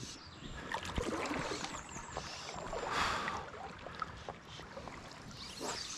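Shallow river water splashing and sloshing close by, with scattered small knocks and a louder swell of splashing about three seconds in.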